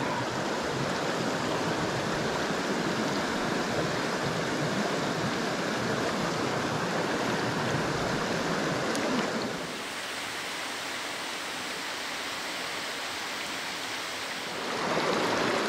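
Steady rushing of a small, rocky mountain creek running over stones. About ten seconds in, the water sound drops to a quieter, softer flow, then swells again near the end.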